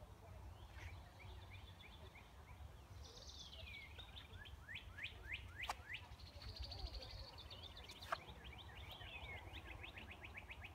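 Songbirds singing in a garden: several birds overlapping with quick down-slurred chirps, a high trill and a fast run of repeated notes toward the end. A sharp click sounds about eight seconds in, over a low steady rumble.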